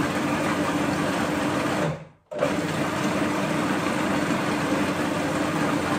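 Food processor motor running steadily as oil is poured in to emulsify smoked cod's roe into taramasalata. About two seconds in, it winds down and stops for a moment, then starts again abruptly.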